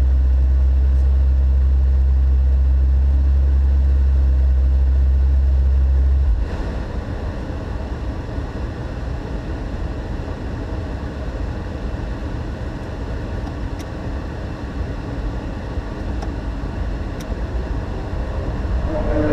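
McLaren 650S twin-turbo V8 idling while stationary, a steady low drone heard from inside the cabin. The drone cuts off suddenly about six seconds in, leaving a quieter, even rumbling noise.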